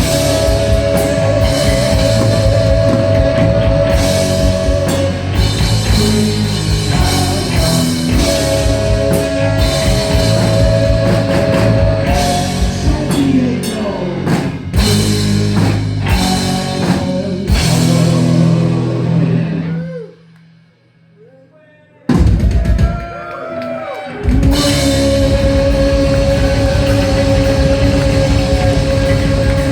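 Heavy metal band playing live: pounding drum kit and distorted electric guitars with long held notes. About two-thirds through the band stops for about two seconds, then comes back in.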